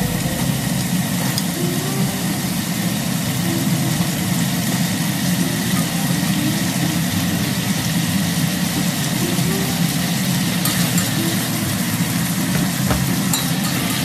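Chicken pieces frying in an oiled pot on a gas stove: a steady sizzling hiss over a low steady hum, while vegetables are tipped into the pot and stirred.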